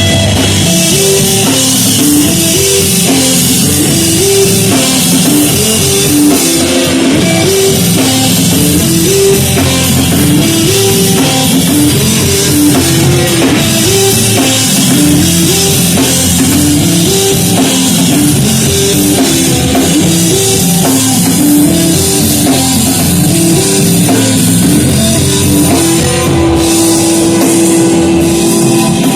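Rock music with drum kit and guitar playing a short repeating riff, with a held note near the end.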